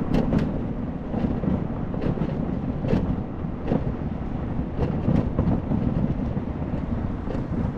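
Wind buffeting the microphone of an action camera on a moving electric scooter, with steady road rumble. A few sharp knocks or clicks are scattered through it.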